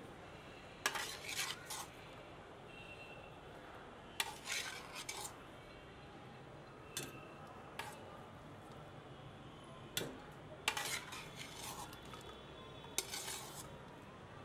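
Metal slotted spatula clinking and scraping against a pan and a steel mixer-grinder jar while cooked onion, tomato and garlic are scooped in, in short runs of clinks every few seconds.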